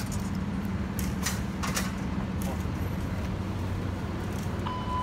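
A vehicle engine idling with a steady low hum, a few sharp clicks in the first two seconds, and a single steady beep starting near the end.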